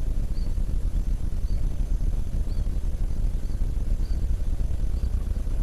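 A bird's faint short high chirp repeating about once a second over a steady low rumble.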